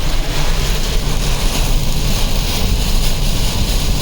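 Steady rushing wind noise buffeting the microphone, with a heavy low rumble, mixed with the road noise of a moving vehicle.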